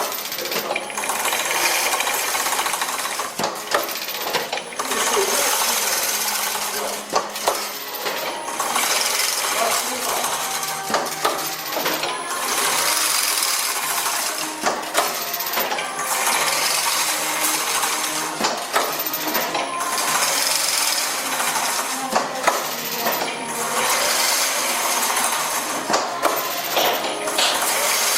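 Automatic chain-link mesh machine running, with clattering metallic clicks and a mechanical cycle that repeats about every three and a half to four seconds.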